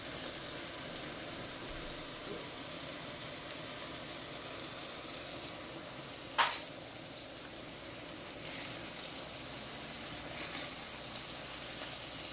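Small dried fish (nsensa) and sliced onions sizzling steadily in hot oil in a frying pan. A single brief sharp knock sounds a little past halfway.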